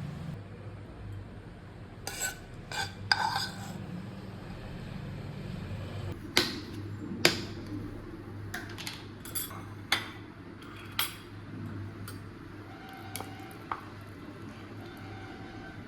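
Kitchen cookware and cutlery clinking and clattering: a quick cluster of clinks about two seconds in, then sharp separate knocks and taps through the middle, over a low steady hum.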